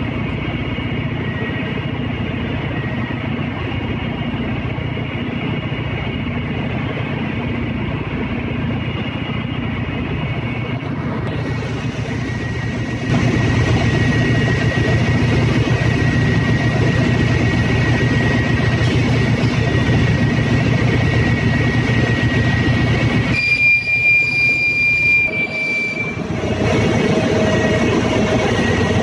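Steady machinery drone in a ship's engine room, with a faint high whine running through it. It gets louder about thirteen seconds in, and a short higher tone sounds briefly near the end.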